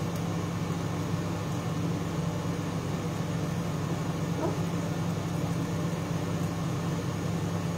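Steady low hum of a kitchen extractor hood fan running, with an even hiss over it.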